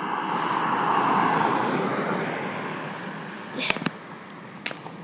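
A car passing on the road, its noise swelling and then fading away over a few seconds. Two short clicks follow near the end.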